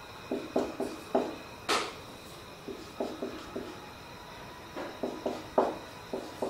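Marker pen writing on a whiteboard: a series of short strokes and taps, with a sharper click just under two seconds in.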